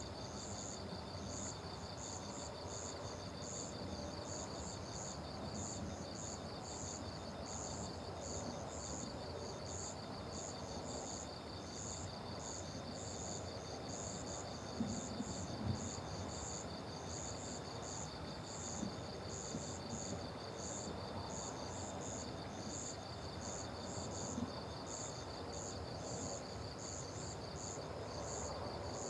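Crickets chorusing: one gives a steady, fast-pulsing trill while a higher chirp repeats two or three times a second, over a low background hiss. A few soft low thumps come around the middle.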